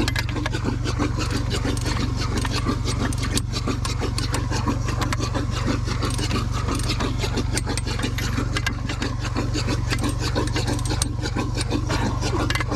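Mini excavator's engine running steadily, with frequent small clicks and rattles over it.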